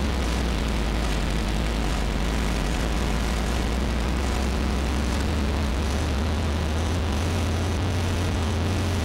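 Live circuit-bent electronic noise music: a steady, loud, low droning hum with a hiss spread over it, unbroken throughout.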